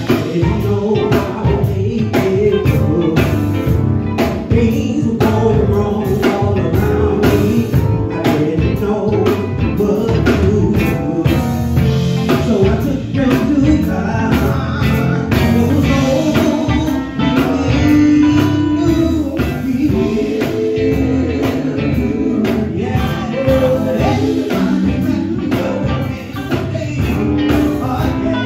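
Live gospel band performing: a male lead singer sings into a microphone over electric guitars and electric bass, with a steady beat underneath.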